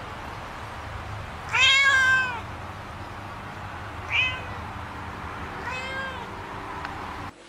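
Kitten meowing three times: a long, loud meow about two seconds in, then a short one and a slightly longer one near four and six seconds, over a steady low hum that drops away just before the end.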